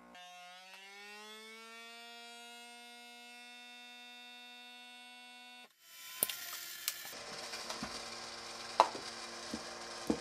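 Electric vacuum sealer pump drawing a vacuum through a hose on a jar-sealer lid, a steady whine that climbs a little in pitch at first as the vacuum builds, then cuts off suddenly after about five and a half seconds. It is followed by a hiss and light clicks and knocks as the jar attachment is handled and lifted off.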